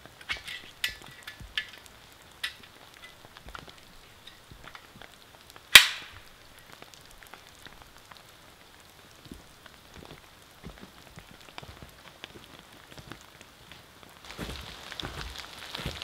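Light rain in a forest, scattered drops ticking, with one sharp click about six seconds in. Near the end a louder rustling starts.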